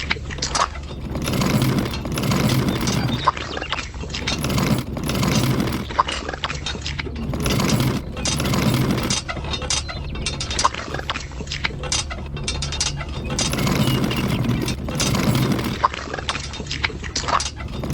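Small motor running with a steady low hum, while stones and gravel clink and crunch, swelling in loudness every couple of seconds, with many sharp clicks.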